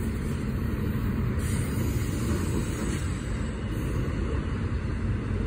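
Double-stack intermodal freight train cars rolling past at speed, a steady rumble of wheels on rail.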